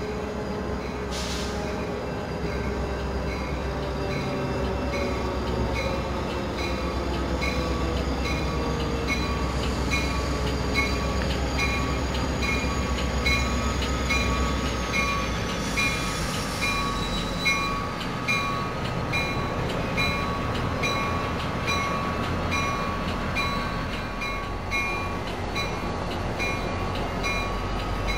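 Coaster F40PHM-2C diesel locomotive running with a steady low rumble and a constant whine. Grade-crossing warning bells ding in a regular rhythm throughout.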